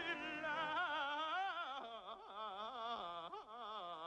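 A man singing one long drawn-out note with a wide, wobbling vibrato, the last word of a pirate sea shanty. The pitch steps down twice in the second half.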